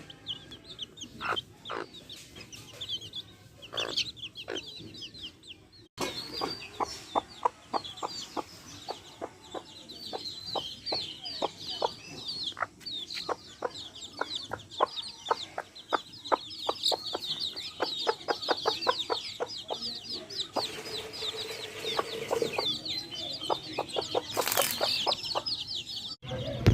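Backyard hens clucking while their chicks peep in many short high chirps. From about six seconds in, quick dense tapping runs alongside the chirps, and there is one brief loud burst near the end.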